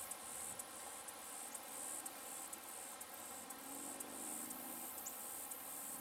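High-pitched insect chirping in evenly spaced pulses, about two a second, over a faint steady background.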